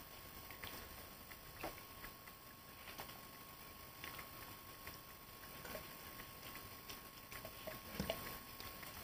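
Weimaraner eating peanuts off a carpet: faint, irregular crunching and clicking as it picks up and chews the pieces, louder for a moment about eight seconds in.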